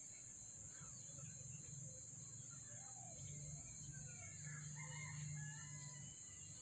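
Faint chicken calls, short clucks and chirps, bunched together about halfway through, over a steady high insect drone and a low hum.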